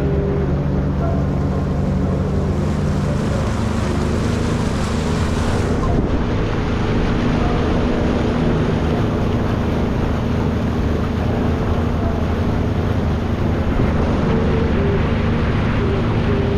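Motorboat engine running steadily underway, with wind buffeting the microphone and water rushing past the hull.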